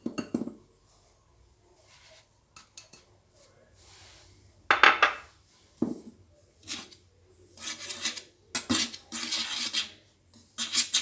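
Utensils clinking and scraping against a mixing bowl as cornmeal is added, in irregular bursts, the loudest about five seconds in.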